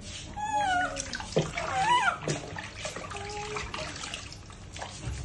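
Water splashing and pouring in a plastic tub as two infant macaques are bathed by hand. Two short, high-pitched calls from the infant macaques come through, one falling about half a second in and one rising then falling about two seconds in.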